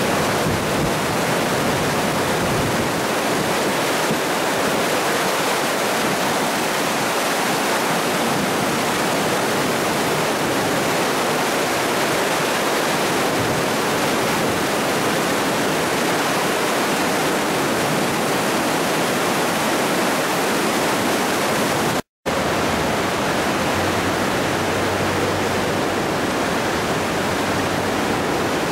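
Flash-flood water rushing and churning through a flooded car park, a steady loud rush of water. It breaks off for an instant about twenty-two seconds in, then goes on.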